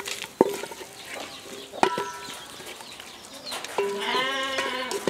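Wooden spoon stirring chunks of boiled dried beef in a metal cooking pot, knocking against the pot three times so that it rings. About four seconds in there is a short wavering cry.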